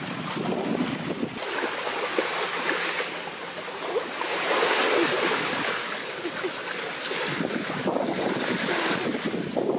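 Surf washing on the shore with wind buffeting the microphone, swelling to its loudest about halfway through.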